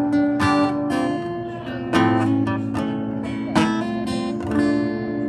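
Acoustic guitar strumming chords after the last sung line, each chord left to ring before the next strum, as the song's closing instrumental bars.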